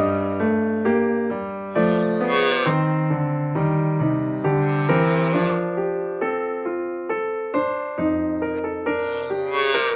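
Background piano music, a steady run of played notes.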